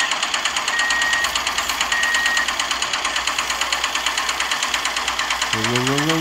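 Miniature model walking tractor's small motor running with a fast, even chatter as the tractor drives along.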